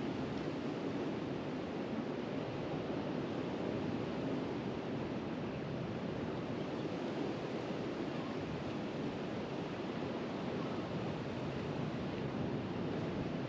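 Steady wash of the sea at a rocky shore, an even rushing noise with a small swell pushing in.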